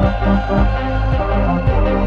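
Electronic background music with a steady beat of about two strikes a second over held synth notes and a deep bass line.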